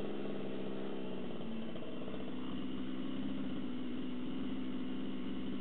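Two-stroke gas engine of a Redcat Rampage XT RC truck running steadily at low speed while warming up.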